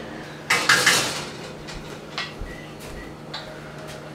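Kitchen handling noise: a brief scraping rustle about half a second in, then a few light knocks, over a steady low hum.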